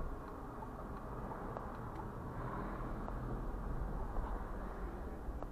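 Steady low rumble heard from inside a stopped car, with a few faint, scattered clicks.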